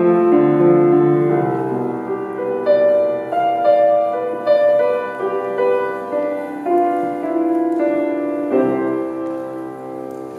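Grand piano being played: a slow passage of held notes and chords, with a chord struck near the end that is left to ring and fade away.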